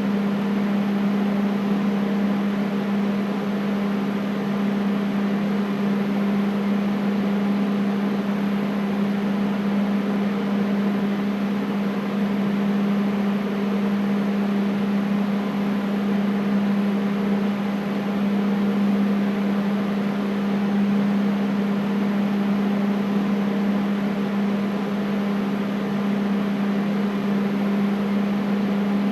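Air conditioner running steadily: an even rush of air with a strong low hum and fainter higher tones above it, unchanging throughout.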